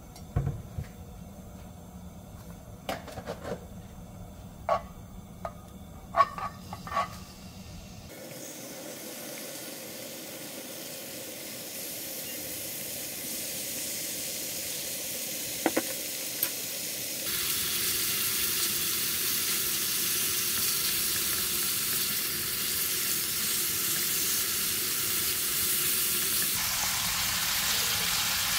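Sliced bacon and garlic frying in oil in a pan: a sizzling hiss sets in about eight seconds in and grows steadily louder. A few sharp clicks and knocks come before the sizzle starts.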